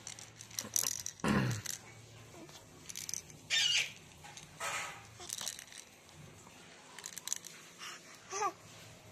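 A baby at play: scattered rustling and handling noises, with a short baby vocalization near the end.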